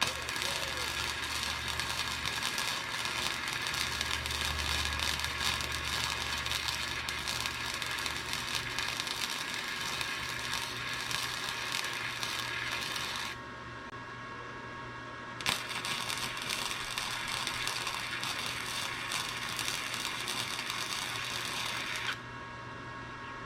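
MIG welder arc crackling as a bead is laid: one long run of about thirteen seconds, a pause of about two seconds, then a second run of about seven seconds that cuts off sharply.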